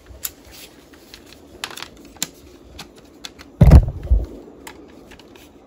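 Small plastic clicks and rattles as a pack-film cartridge is fitted into the film back of a Polaroid Land Camera 320, with a louder knock and thump about three and a half seconds in as it is pressed into place.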